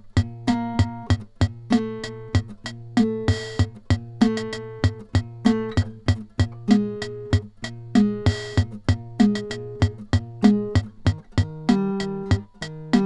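Instrumental song intro: a guitar picks a repeating pattern of plucked notes over a steady low bass tone. A short noisy swish comes in twice, about five seconds apart.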